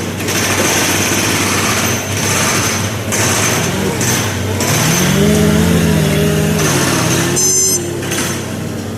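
Heavy diesel machinery engine running with a loud hiss over it; around the middle its pitch rises and falls as it works under load, then the sound drops back a little near the end.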